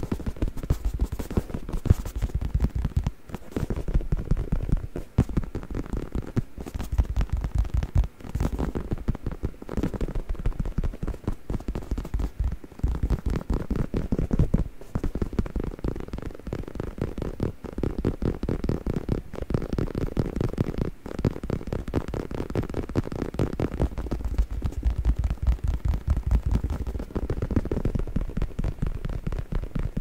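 Fingers tapping and scratching rapidly on a faux-leather neck pillow held right up against the microphone. The result is a dense, unbroken run of soft, dull taps.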